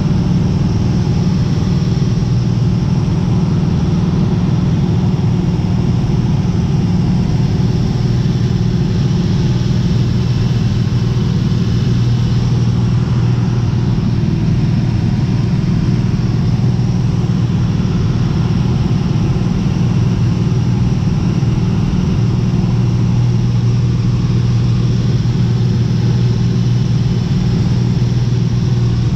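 Cessna 210 Turbo Centurion's turbocharged six-cylinder engine and propeller running steadily in flight, a loud even drone heard inside the cockpit.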